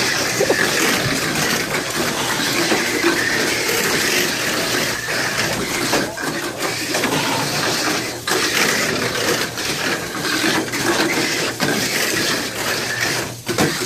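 Mini 4WD cars racing around a plastic track: a steady whir of small electric motors and gears, with frequent clicks and clatter as the cars run over the track.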